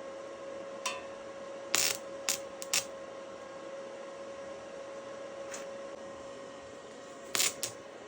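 Stick welder humming steadily while a rod is scratched against the metal, giving a few short sharp crackles instead of a running arc: the rods are not welding properly. The hum cuts off suddenly near the end.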